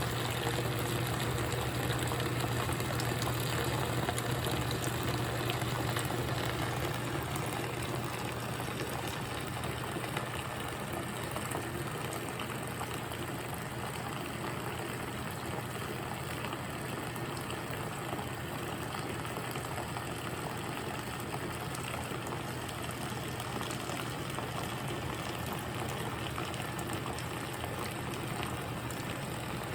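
GE top-load washing machine running a load, with a steady rush and slosh of water in the tub over a steady low hum. It eases off slightly after the first several seconds.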